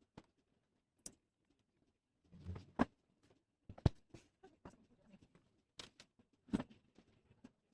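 Scattered light clicks and taps from handling small hard parts, with a brief rustle a little over two seconds in and a sharper click near four seconds in.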